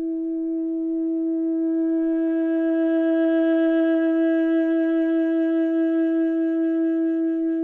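Soundtrack music: one long held note, steady in pitch, growing fuller about two seconds in and wavering slightly toward the end.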